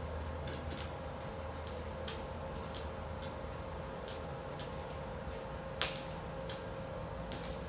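Steady electrical hum from an arc-welding setup, with scattered sharp clicks and ticks at irregular intervals.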